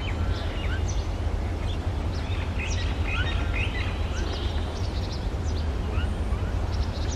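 Several songbirds chirping and calling in short, quick notes, scattered throughout, over a steady low rumble.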